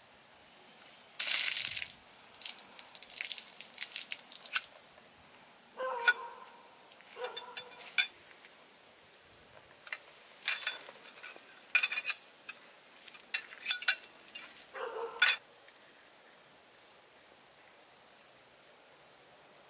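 Metal tent poles clinking and rattling as they are handled and taken apart, in irregular bursts of sharp clanks, some with a brief metallic ring. The clanking stops about three-quarters of the way through.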